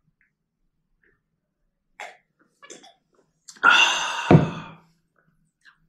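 A man coughing: one loud, harsh cough about three and a half seconds in with a second push right after it, following a few faint mouth clicks while eating.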